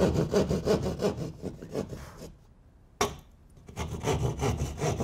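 Keyhole saw cutting through plasterboard in fast rasping hand strokes, about five a second. The strokes stop briefly a little over two seconds in and then go on.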